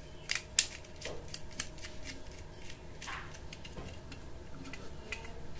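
Small clicks and taps of a screwdriver and a plastic electrical socket being handled while wires are fixed to its terminals, with two sharper clicks in the first second.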